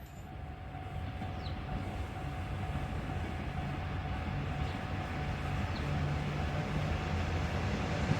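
KiHa 47 diesel railcar approaching, its low engine drone growing steadily louder.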